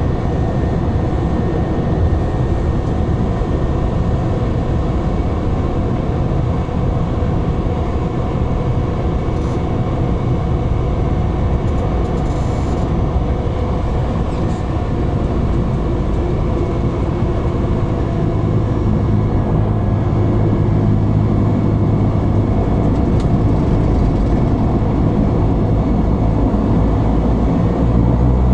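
Cabin noise of a Cessna Caravan rolling on the runway: the steady drone of its turboprop engine and propeller, heard from inside the cabin. About two-thirds of the way in, a low hum in the drone grows stronger.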